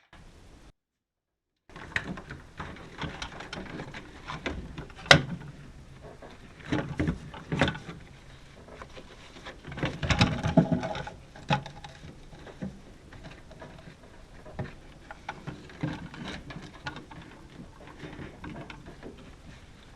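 Handling noise from hands-on repair work: irregular knocks, clicks and rustles of parts and tools being handled, with one sharp click about five seconds in.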